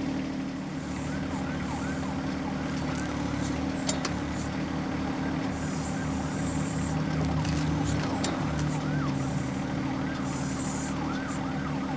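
John Deere 1025R compact tractor's three-cylinder diesel engine running steadily while working the backhoe, with a high warbling tone rising and falling a few times a second over it and a few sharp clicks.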